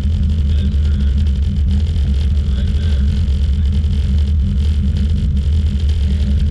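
1930 Ford Model A coupe hot rod driving, heard from inside the cabin: a steady, loud low engine and road rumble.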